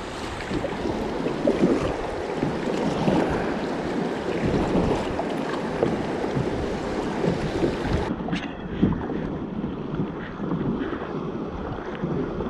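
Kayak running through river rapids: rushing, splashing water with wind buffeting the microphone. The sound turns duller about eight seconds in.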